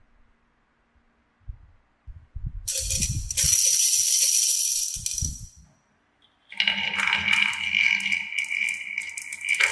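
Marbles rattling and clattering down a plastic marble-run track, in two runs: a loud rattling spell a few seconds in, then after a short pause a longer stretch of quick, dense clicking.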